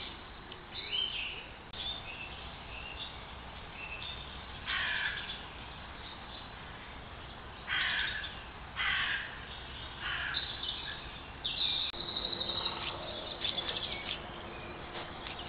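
Wild calls in woodland: a few loud, harsh calls about five, eight, nine and ten seconds in, with softer chirps in the first few seconds. A faint steady hum runs under the last few seconds.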